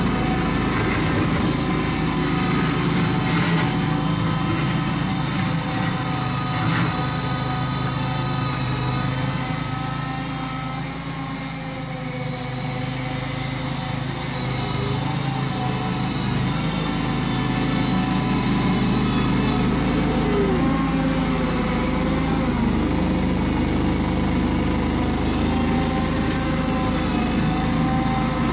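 Homemade wheel loader's small Kawasaki engine running steadily as the loader drives and works snow, getting a little fainter in the middle of the stretch as the machine moves away and then louder again as it comes back.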